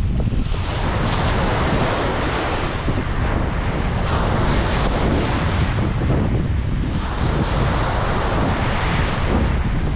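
Ocean surf breaking and washing on a beach, swelling and easing about three times, with wind rumbling on the microphone underneath.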